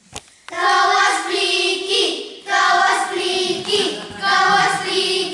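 Children singing a song together, in long held notes, starting about half a second in after a short click.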